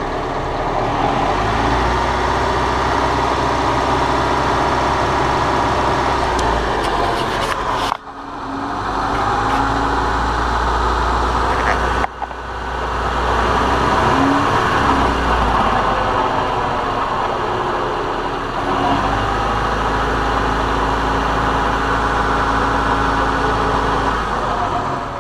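Steady mechanical running noise with a low hum, broken off sharply twice.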